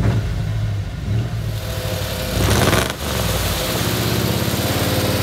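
1985 Ford Bronco engine revving hard through its loud Cherry Bomb exhaust for a two-wheel-drive burnout on snow, first heard from inside the cab, then from outside after a sudden change about three seconds in. The driver suspects only one rear tire was spinning.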